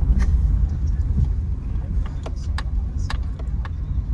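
Steady low rumble of a car's engine and tyres heard from inside the cabin while driving slowly. A few short sharp clicks come in the second half.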